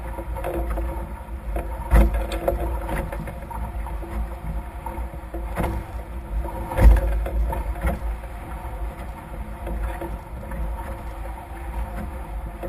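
Nacra F18 sailing catamaran under way: a steady rush of water along the hulls and wind on the microphone, with two sharp thumps, about two seconds in and just before seven seconds in.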